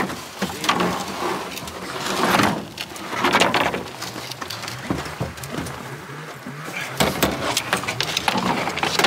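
Snowmobile being pushed across a pickup truck bed and off the tailgate: uneven scraping and sliding, with scattered knocks and clunks.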